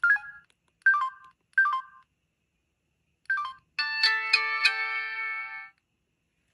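Samsung Intensity II phone's speaker: four short two-note key beeps, then its Verizon power jingle, a bright chime of several notes struck together lasting about two seconds, as the phone shuts down.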